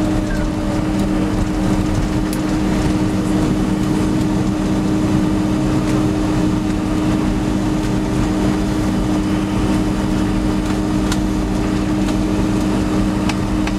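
Steady engine and air noise inside the cabin of a Boeing 767-300 rolling out on the runway after landing, with a constant low drone under an even rushing noise.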